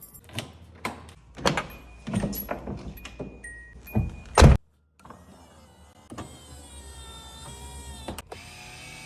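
1981 Datsun 280ZX's interior: a series of clicks and knocks, then a loud thump about four seconds in. From about six seconds in comes the steady whine of an electric power window motor.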